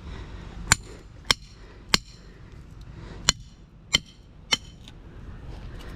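Hammer blows on the copper winding bundle of an electric motor being torn down for scrap: six sharp metallic strikes in two groups of three, each with a short ring.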